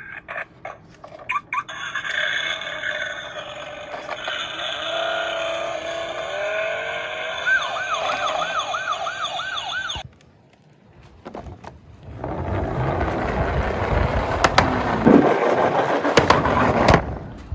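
Police siren sound effect with several layered tones, turning into a fast up-and-down yelp, then cutting off suddenly. After a short pause comes a few seconds of loud rattling, rushing noise with clicks, from die-cast Tomica toy cars running down a slope, which stops abruptly.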